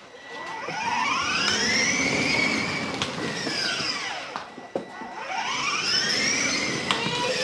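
Electric drive of a child's battery-powered ride-on toy buggy running across paving: a motor and gearbox whine that rises in pitch as it speeds up and falls as it slows, twice, over the rumble of its plastic wheels.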